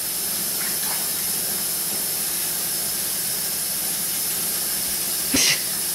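A steady, even hiss, with a short breathy sound about five and a half seconds in.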